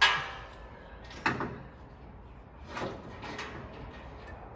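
Metal clanks from the sheet-metal panel being pulled and clamped into place: a sharp clank with a short ring at the start, another about a second later, and a softer rattle near three seconds in.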